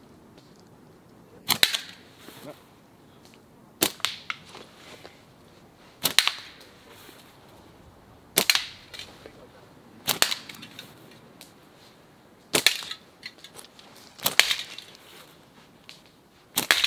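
Slingshots shot in turn: eight sharp cracks of the flat rubber bands snapping forward at release, about one every two seconds, each followed by fainter ticks.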